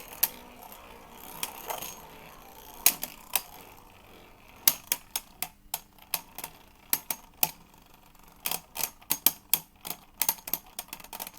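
Beyblade spinning tops, Mirage Fafnir F6 among them, clashing in a stadium: a run of sharp plastic-and-metal clicks, scattered at first and much more frequent from about halfway through, as the tops trade hits before one outspins the other.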